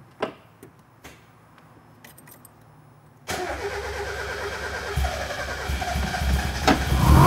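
A few faint clicks, then about three seconds in the supercharged Mazda MX-5 Miata's four-cylinder engine is cranked on the starter, catches and runs, getting louder toward the end. This is the first start on a newly fitted Motorsport Electronics ME442 ECU running the map copied from the old ECU.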